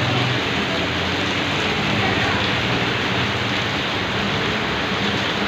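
Rain falling steadily on a wet paved street and its puddles, an even, unbroken hiss.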